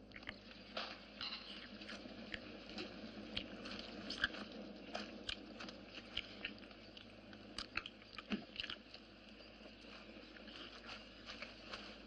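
Scattered sharp crackles and crunches over a low steady hiss, with one sharper crack about four seconds in. They come from a campfire roasting a horse carcass on a spit and from soldiers gnawing the roast meat.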